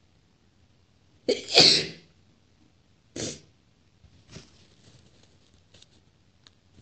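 A woman sneezing hard and wet: a sharp onset about a second in, then the loud main burst. A shorter, quieter burst comes about two seconds later, followed by faint small noises.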